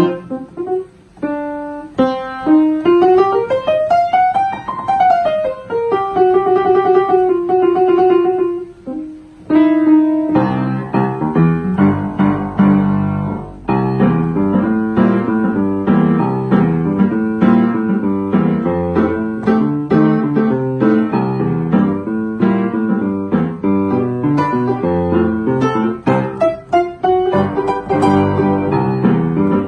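Upright piano played by hand: a melody of single notes for the first ten seconds or so, then fuller chords with lower notes.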